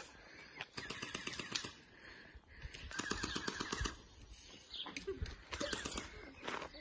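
Automatic BB gun firing in three rapid bursts of about a second each: one early on, one in the middle and one near the end.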